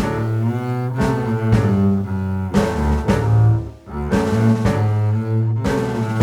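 Background music: a steady beat under deep bass and string-like notes.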